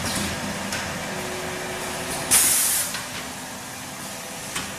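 Napkin converting and packing machine running steadily, with a sudden loud burst of compressed-air hiss about halfway through, lasting about half a second, from its pneumatic air lines venting.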